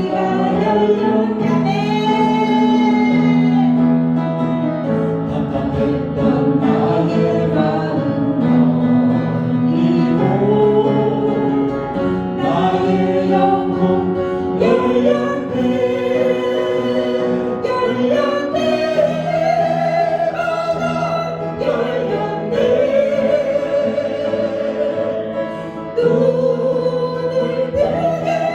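Congregation and worship leaders singing a Korean praise song in unison with instrumental accompaniment, long held notes.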